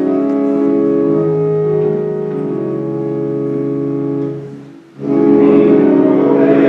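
Church organ playing slow, steady held chords, which fade out about four and a half seconds in. About five seconds in, organ and voices come in together, louder, starting the sung memorial acclamation.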